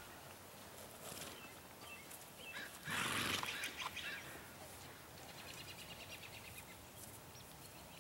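A horse snorts once, a short noisy blow through the nostrils about three seconds in, against a faint outdoor background.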